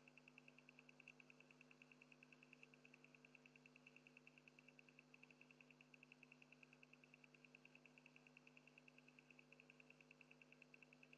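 Near silence: a faint steady electrical hum with a faint high-pitched pulsing tone, about eight pulses a second.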